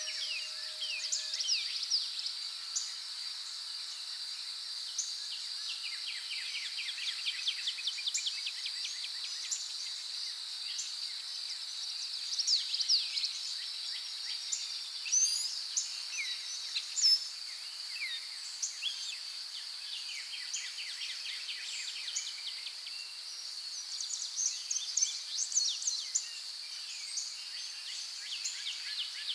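Outdoor nature ambience: a steady high insect drone with many birds chirping and trilling in short, quick phrases over it.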